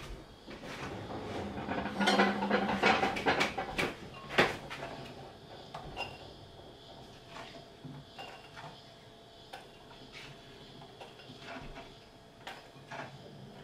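Ceramic dishes clattering as a bowl is fetched, ending in a sharp knock about four and a half seconds in. After that come sparse, quieter knocks as chopped zucchini pieces are dropped by hand into the ceramic bowl.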